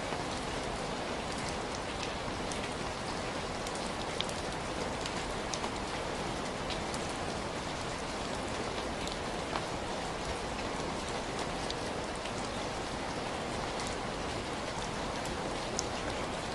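Heavy rain falling steadily in a dense even hiss, with individual drops ticking sharply here and there.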